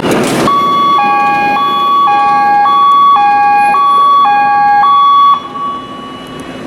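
Two-tone electronic alarm alternating between a high and a low note about twice a second for some five seconds, then cutting off, over steady machinery noise: the emergency-stop alarm of an Akasaka AX31R marine diesel main engine's control panel going off as the automatic emergency stop trips.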